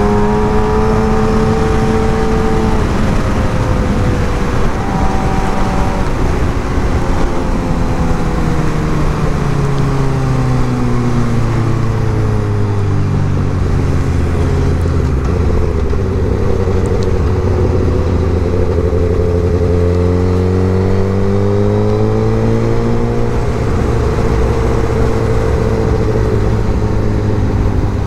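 Suzuki GSX-R1000 inline-four engine running under way, with steady wind and road noise. The engine note falls gradually for about the first half as the bike slows, then rises again and settles at a moderate, steady pitch.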